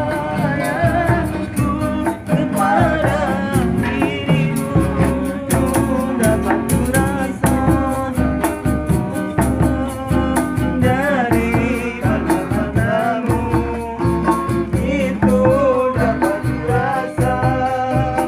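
Acoustic guitars strummed in a steady rhythm with singing over them: a casual jam-session song.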